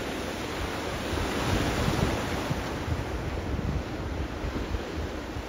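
Sea waves washing on the shore, with wind buffeting the microphone in a gusty low rumble; the wash swells about two seconds in.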